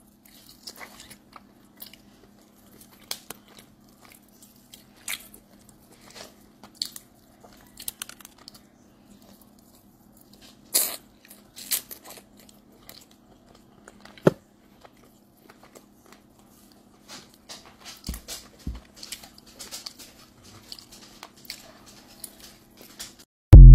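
Close-up eating of crispy fried chicken: scattered crunches from biting and chewing, with mouth sounds, over a faint steady low hum. A sudden loud burst cuts in at the very end.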